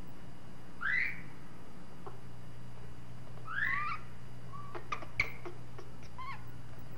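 Infant rhesus monkey giving short high chirping calls: one rising-and-falling call about a second in, a two-part call around three and a half seconds, then a quick run of sharp chirps, over a steady low hum.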